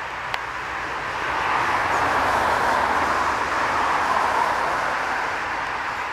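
A train running along the line, growing louder for a few seconds in the middle and then easing. A single sharp click comes just after the start.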